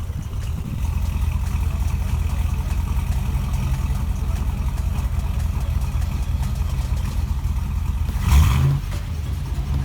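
Chevy Avalanche's LS V8 with an aftermarket camshaft running at a steady idle with an even low pulse, no longer misfiring on a whole bank after an intake manifold gasket replacement. A short louder burst comes near the end.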